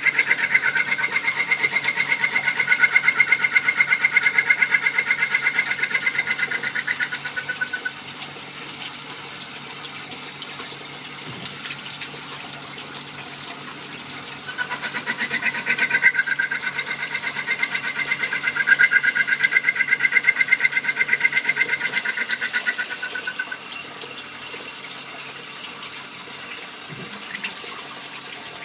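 Compound automatic lathe turning small-diameter precision parts: a high-pitched, rapidly pulsing whine during the first eight seconds and again from about halfway through for nine seconds, over a steady wash of cutting coolant.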